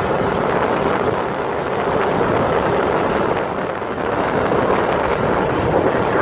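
Steady wind rushing over the microphone of a moving motorcycle, with the motorcycle's engine running underneath.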